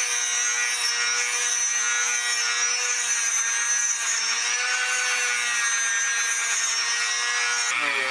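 Dremel rotary tool spinning a Scotch-Brite pad against a brass oil canister, stripping old varnish. It makes a steady high whine that wavers slightly as the pad is pressed on, and the sound shifts just before the end.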